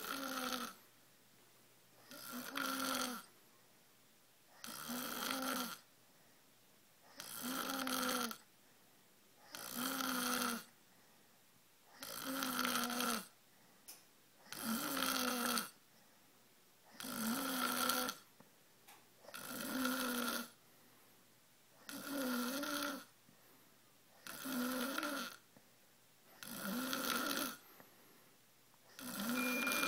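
A sleeping person snoring loudly: a steady run of about a dozen pitched, rattling snores, each about a second long, one every two and a half seconds.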